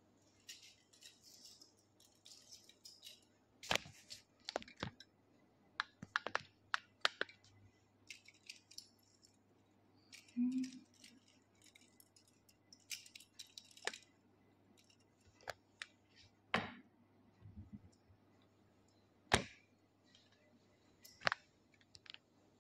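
A gold beaded necklace and pendant being handled: scattered, irregular light clicks and clinks of the metal beads, with soft rustling in between.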